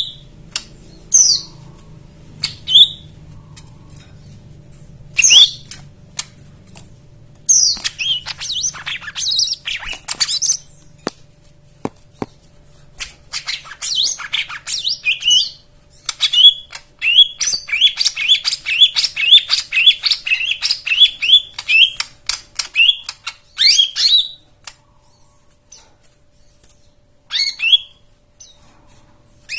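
Lesser green leafbird (cucak ijo mini) singing a varied song packed with fill-in phrases: bursts of high chirps and squawky notes broken by short pauses, with a long run of quickly repeated notes in the middle.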